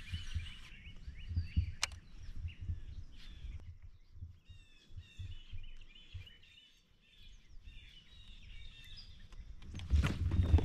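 Songbirds chirping and calling over low, uneven rumbling thumps. A sharp click comes about two seconds in. Near the end a sudden loud rush of noise starts as the fishing rod is swept back in a hookset.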